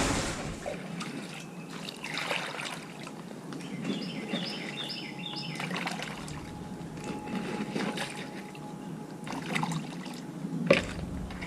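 Water trickling and sloshing as a bucket is filled, with scattered knocks from the bucket and a sharper knock near the end.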